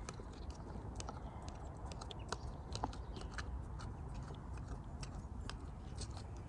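Irregular light clicks and ticks from handling bait and tackle, over a steady low outdoor rumble.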